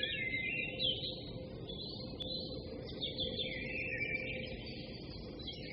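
Many birds chirping and singing at once, a dense mix of quick high chirps and trills, over a faint steady hum.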